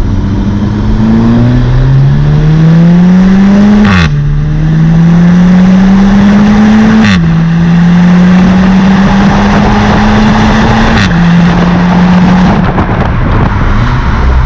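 Seat Leon 5F Cupra 290's turbocharged 2.0-litre four-cylinder engine, heard through its stock two-silencer exhaust, pulling hard through the gears. The engine note climbs in pitch, then drops sharply at upshifts about 4, 7 and 11 seconds in, each marked by a short crack. After the third shift the note holds briefly and falls away as the car eases off near the end.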